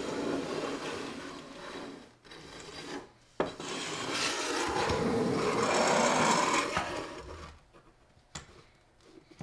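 Steel rule of a combination square scraping across a planed particle-board surface in dragging strokes while it is checked for high spots. The scraping is loudest in the middle, with a sharp click about three and a half seconds in, and dies away near the end.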